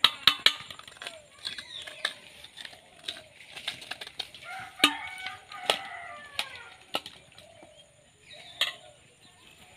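A metal spoon scraping wood apple pulp from the hard shell into a steel bowl, giving several sharp clinks, the first ones in a quick cluster. Chickens call and cluck in the background through the middle of the stretch.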